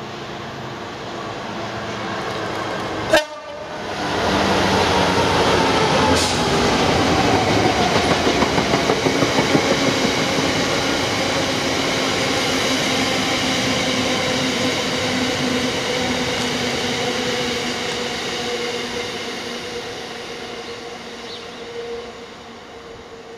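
Class 66 diesel freight locomotive passing with its EMD two-stroke diesel running, sounding a tone on its horn. It is followed by the rumble and rhythmic clickety-clack of a long rake of hopper wagons going by, which slowly fades towards the end. There is a single sharp crack about three seconds in.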